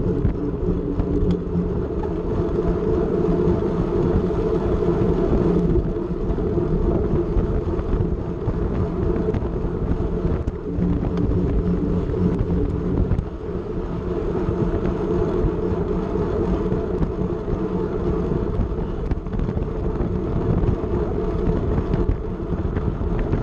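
Steady rush of wind and tyre noise from a bicycle-mounted camera on a racing bicycle riding at speed on a concrete track.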